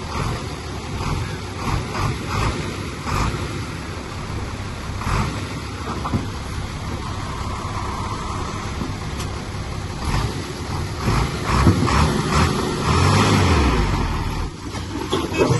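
Diesel engine of heavy earthmoving machinery running, with scattered knocks and clanks. The engine grows louder in the second half and its pitch drops near the end.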